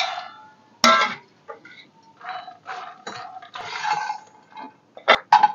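Makhana (puffed lotus seeds) tipped into a nonstick kadhai and stirred with a spatula: a soft rattle as they land, then scattered scraping and rattling, with sharp clicks of the spatula against the pan about a second in and again near the end.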